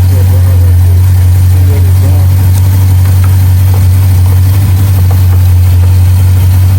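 An engine idling with a steady low drone that holds unchanged. Faint voices can be heard in the first couple of seconds.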